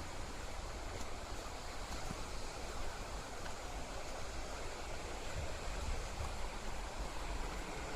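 Steady rush of fast-flowing white water, with a deep rumble underneath.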